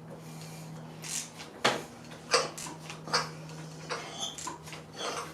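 Hand tools working on an engine: about six sharp metallic clicks and knocks at irregular spacing over a steady low hum.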